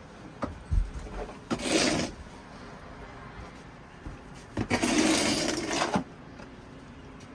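Snow shovel scraping and scooping through deep snow: a few light knocks, a short scrape about a second and a half in, and a longer scrape lasting over a second around five seconds in.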